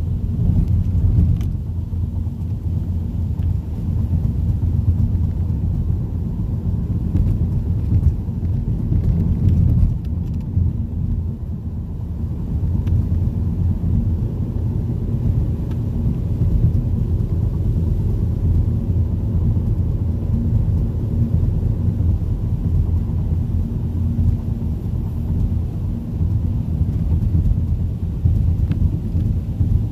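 Volvo car heard from inside the cabin while driving on a wet road: a steady low rumble of tyres and engine, with a few faint ticks of rain hitting the windshield.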